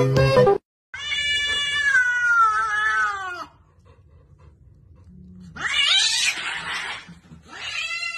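Cats in a standoff yowling: a long drawn-out caterwaul falling in pitch, a harsh hissing cry about five seconds in, then another falling yowl near the end.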